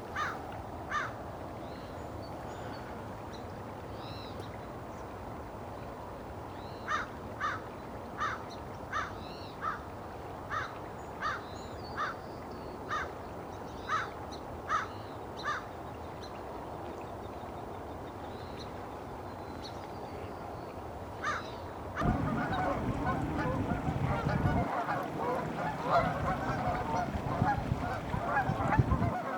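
Canada geese honking: a run of single honks, about two a second, partway in, then a sudden loud chorus of many geese honking together for the last quarter.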